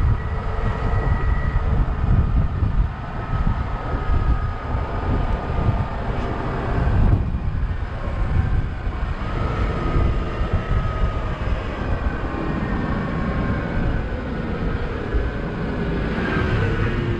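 Open-top double-decker bus driving along, heard from its open upper deck: a steady, uneven low rumble with a faint whine that drifts slowly in pitch.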